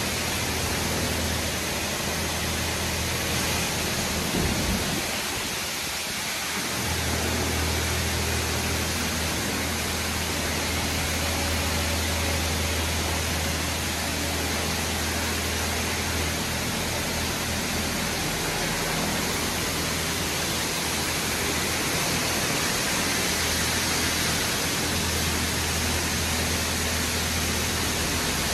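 Steady rushing noise of a PDQ LaserWash 4000 touchless car wash at work, with a low steady hum underneath that drops out briefly about five seconds in.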